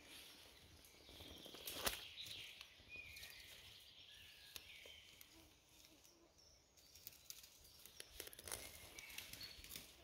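Near silence: quiet forest ambience with faint, scattered bird chirps. A few soft clicks and rustles, the loudest about two seconds in.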